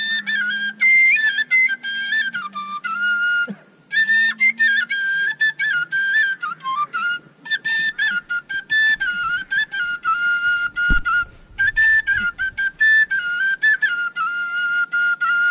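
Small wooden flute played solo: a tune of short stepped notes in phrases with brief breaks between them, ending on a long held note.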